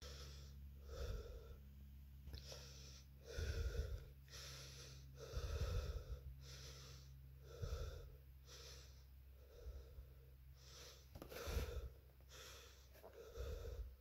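A person breathing close to the microphone, about one breath a second, over a steady low hum.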